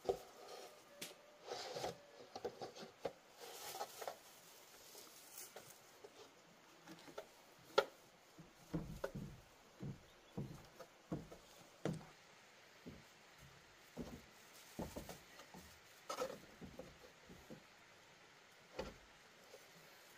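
Irregular light knocks and taps, with one sharper knock about eight seconds in.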